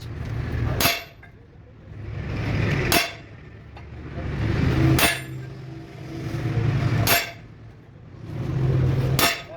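Heavy hammer blows on steel during trunnion shaft and bushing work: five sharp strikes about two seconds apart. Each strike follows a swelling low hum that drops away at the blow.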